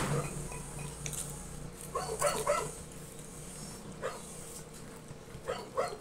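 A dog barking in short, sharp yaps: three quick ones about two seconds in, and two more near the end.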